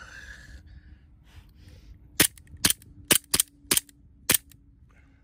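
Six sharp, loud shots from a full-metal KWC CO2-powered Colt 1911 airsoft pistol, fired in quick succession starting about two seconds in.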